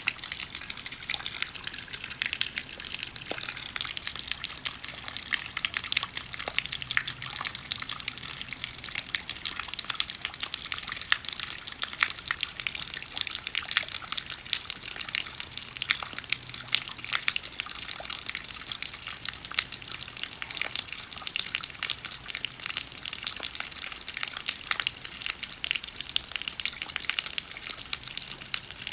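Rain falling steadily: a dense stream of separate drop hits over an even hiss.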